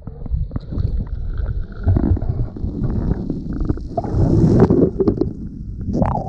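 Muffled underwater sound from an action camera held under shallow sea water: low, irregular sloshing and gurgling of water moving against the camera housing, with scattered knocks, louder about four seconds in.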